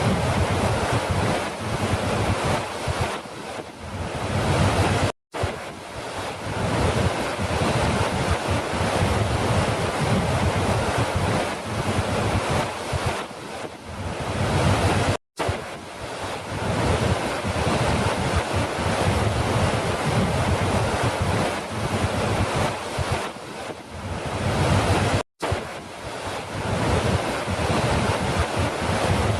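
Falling water rushing steadily. It cuts out for an instant three times, about ten seconds apart, like a recording loop restarting.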